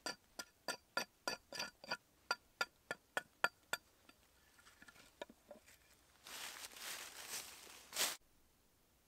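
Quick paring cuts of a sharp blade along the edge of a wooden board, about three crisp ringing clicks a second, stopping about four seconds in. Later comes a two-second rustle that ends in a single knock.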